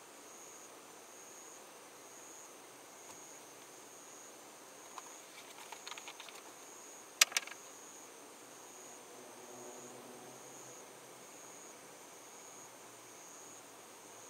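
A screw cap twisted off a paper vinegar carton: a run of small plastic clicks about five seconds in, then a sharp click about a second later. Under it, a faint high-pitched chirp repeats a little faster than once a second.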